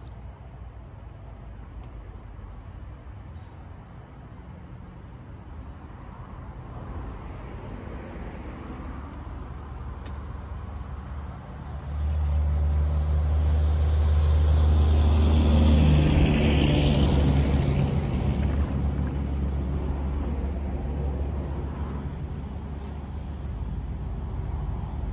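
A motor vehicle's engine passing by: it builds over several seconds, gets suddenly louder about halfway through, then fades with a drop in pitch.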